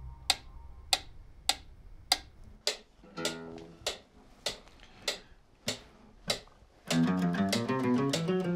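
Pyramid-style mechanical pendulum metronome ticking steadily, a little under two ticks a second. About seven seconds in, an acoustic guitar starts a fast, even run of single plucked notes that climb steadily in pitch up the neck, in time with the metronome.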